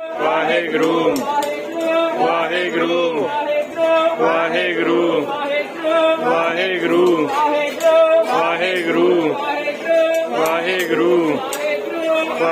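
Men's voices singing a Sikh devotional hymn (gurbani kirtan), a slow melody that glides up and down in repeated phrases of about two seconds.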